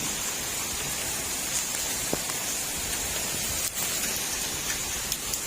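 Heavy rain falling steadily, a dense even hiss with the odd sharper drop tick.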